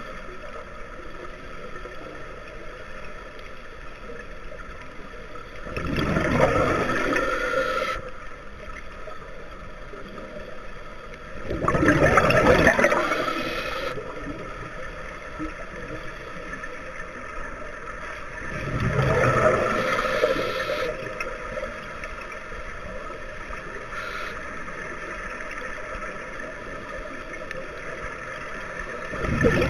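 Scuba diver's regulator exhalations underwater: four bursts of bubbling, each about two seconds long, roughly every six to seven seconds, with a steady low hiss between them.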